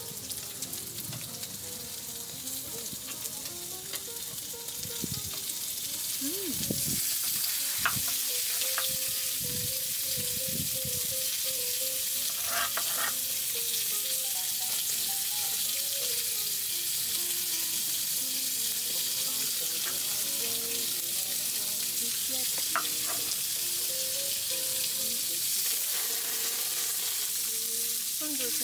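Food frying on a hot grill pan, a steady sizzle that grows louder about seven seconds in and then holds.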